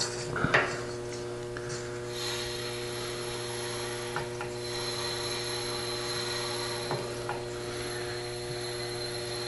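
Faint steady hiss of compressed air flowing through a slowly opened valve into a newly soldered copper air line, starting about two seconds in, over a steady low hum, with a few light clicks.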